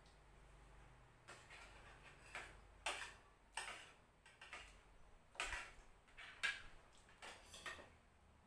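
Quiet eating sounds at a meal: a string of short, irregular clicks and taps, about one or two a second.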